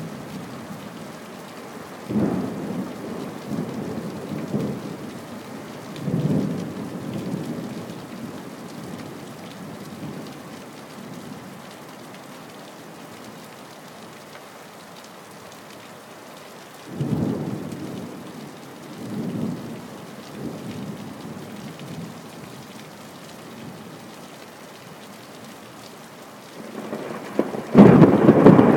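Thunder rumbling over steady rain during an electrical storm: several rolls come and go, and the loudest breaks out near the end.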